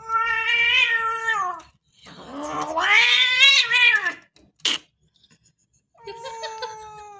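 Domestic cat yowling: three long, drawn-out calls. The first two are loud, the first falling away at its end and the second rising then falling; the third comes near the end, lower and quieter. A short click falls between the second and third calls.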